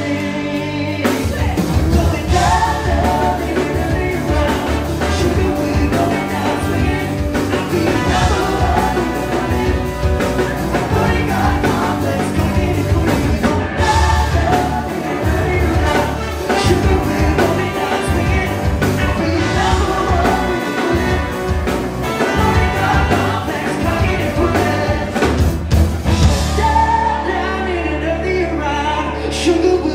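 A live rock band playing a song, with a lead vocalist singing over drums and instruments.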